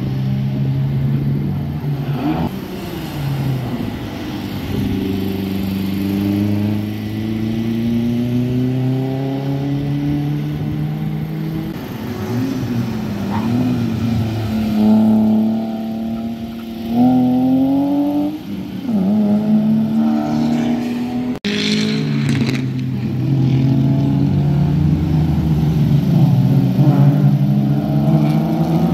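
Race-prepared cars accelerating past on a circuit, their engines revving with the pitch climbing and dropping back at gear changes. About halfway through, a BMW E46 wagon track car passes, and its engine note is loudest then.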